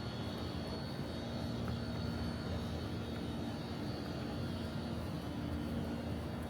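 Steady engine drone with a constant low hum and a faint high whine, holding level throughout.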